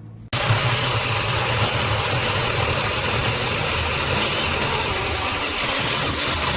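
Battery-powered mini chainsaw running steadily, starting abruptly about a third of a second in.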